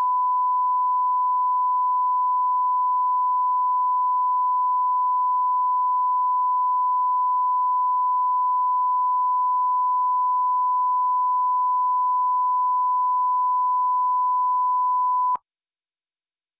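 Steady, loud 1 kHz reference test tone of the kind played with television colour bars. It cuts off suddenly with a click about fifteen seconds in.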